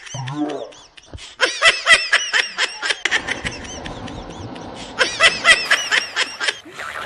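High-pitched laughter in quick, even ha-ha pulses, in two bursts: one about one and a half seconds in and another about five seconds in.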